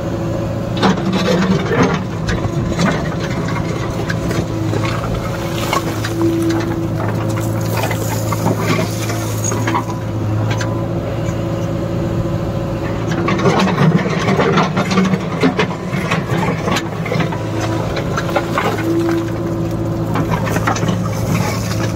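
JCB 3DX backhoe loader's diesel engine running steadily under working load. Over it come scattered scrapes and knocks of broken stone and rubble as the backhoe bucket works the pile, in clusters about a second in and again about halfway through.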